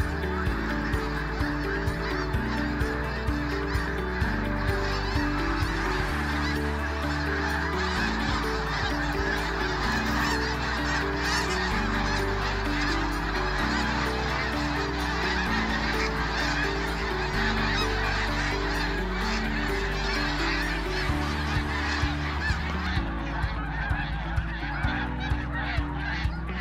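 A large flock of geese calling in a dense, continuous clamour of overlapping honks.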